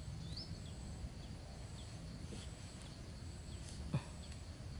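Quiet outdoor ambience: a low rumble, a faint steady high insect drone and a short rising bird chirp near the start. About four seconds in comes one sharp click as bamboo sticks and string are handled while a stick trap is set.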